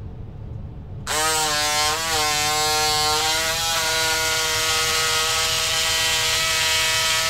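Cordless electric fabric scissors starting about a second in and running on while cutting through denim jeans; their motor whine wavers in pitch for the first couple of seconds, then holds steady.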